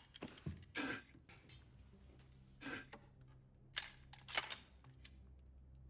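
Crossbow being fired: a few soft clicks, then two sharp snaps close together about four seconds in, over a low steady hum.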